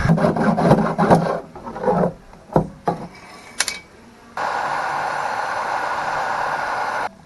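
Rough scraping and rubbing strokes as softened polyethylene is smeared into a hole in a kayak hull, then a few scattered scrapes. About halfway in, a heat gun blows with a steady hiss for nearly three seconds, cut off abruptly just before the end.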